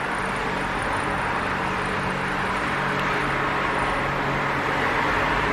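Steady machine noise: an even rushing sound over a low hum, holding level throughout.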